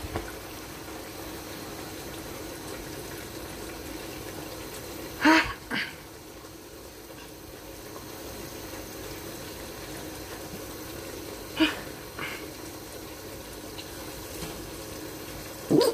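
Tomato stew simmering under a glass lid, a steady bubbling. Twice, about five and about eleven seconds in, a short, loud pitched sound cuts in over it, each time followed by a fainter one.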